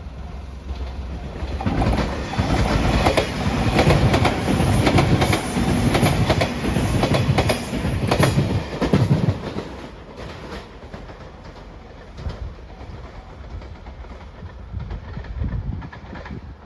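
A train passing close by at speed over a level crossing, its wheels clacking over the rail joints. The sound is loud for about eight seconds, then falls to a fainter rumble as the train moves away.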